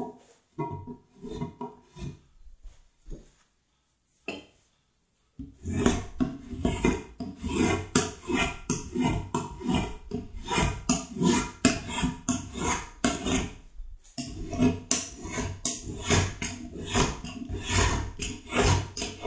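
Hand tool scraping along the edge of a wooden chair seat in quick back-and-forth strokes. A few spaced strokes come first, then a pause, then a steady run of about two strokes a second with a brief break about two-thirds of the way through.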